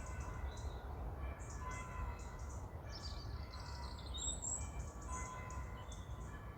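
Small birds chirping and calling repeatedly over a steady low rumble, with faint music underneath.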